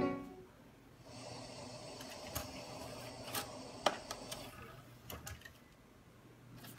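Small motor of a car CD radio's disc-loading mechanism whirring faintly for a few seconds, with several sharp clicks from the mechanism; the whirring fades about two-thirds of the way through, and a single click comes near the end.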